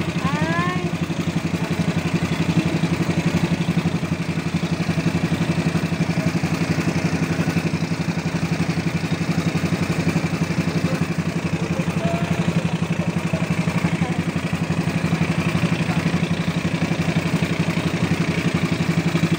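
Engine of a motorized outrigger boat (bangka) running steadily under way, a constant hum with a rapid, even beat.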